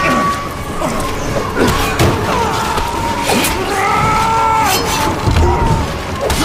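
Sound-designed film fight: a string of punch and body-slam impacts, with a shouted yell about four seconds in.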